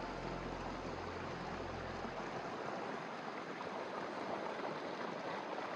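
Steady rush of running water from a stream swollen by heavy rain, with the low notes of background music ending about two seconds in.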